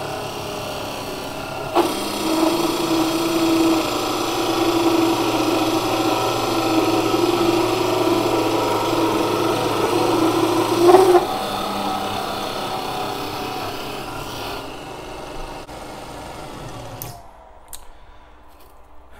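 Unimat SL-1000 micro lathe, driven by a 150 W 24 V DC motor through belts, turning a metal bar. From about two seconds in, the tool cuts for roughly nine seconds with a steady ringing tone, which the owner puts down to the unbolted lathe's lack of rigidity. Afterwards the lathe runs on without cutting and is switched off and winds down shortly before the end.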